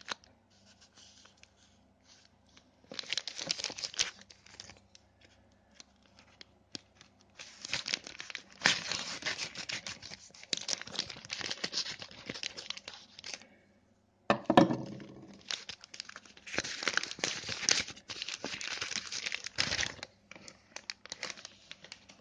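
A white plastic mailing bag being torn open and crinkled by hand, in several long stretches of tearing and rustling with short pauses between. A louder handling knock comes about two-thirds of the way through.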